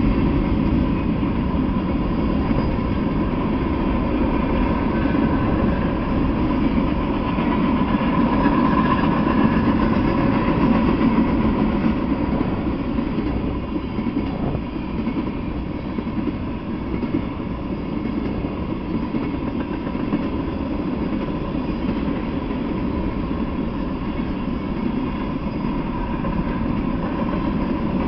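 Freight train cars rolling past on the rails: a steady, continuous noise of steel wheels on track.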